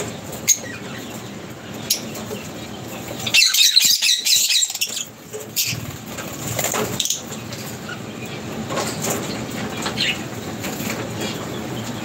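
Lovebirds chirping in an aviary, with a burst of rapid high-pitched chatter about three and a half seconds in and scattered short calls around it.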